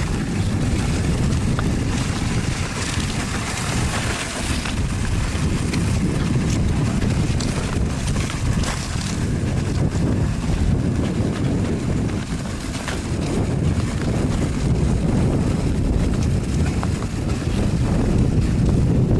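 Wind buffeting the microphone, a steady heavy noise, with faint short scratches scattered through it.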